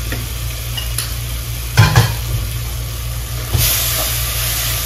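Ground masala paste frying and being stirred into onion and tomato in a hot clay pot with a wooden spatula. Two sharp knocks come about two seconds in, and the sizzling gets louder from about three and a half seconds.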